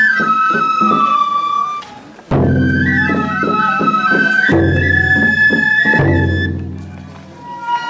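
Japanese festival procession music. Transverse flutes (fue) play a melody of long held notes that step down in pitch, over low drum strokes. The music breaks off briefly about two seconds in and fades again near the end.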